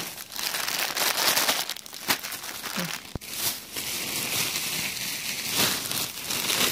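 Clear plastic bags and food wrappers crinkling and rustling as they are handled, in irregular bursts, with one sharp click a little after three seconds in.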